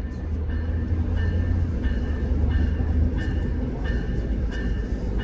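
Diesel-electric passenger locomotive (VIA Rail Siemens Charger) approaching with a steady low rumble, under a bell ringing evenly, about three strikes every two seconds.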